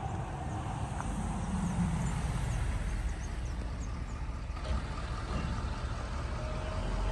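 A vehicle driving: steady low road and engine rumble.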